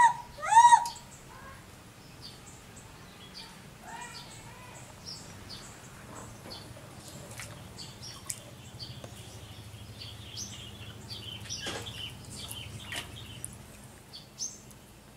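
Baby monkey crying: two loud, high, arching cries in the first second, then faint scattered high chirps.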